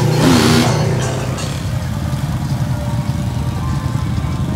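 Engines of ATVs and side-by-side off-road vehicles running at low revs with a steady low rumble, as they drive through a shallow water crossing. A short hiss comes near the start.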